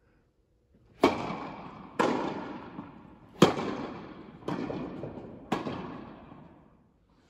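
Tennis ball struck by rackets and bouncing during a rally: five sharp pocks about a second apart, each ringing out in a long echo off the walls of a large indoor tennis hall.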